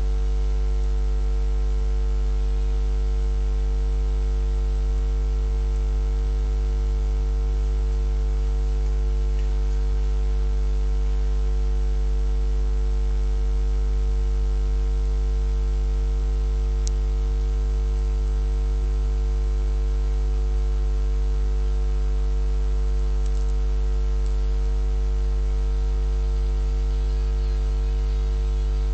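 Steady low electrical mains hum with a buzzy ladder of overtones, unchanging in pitch and level.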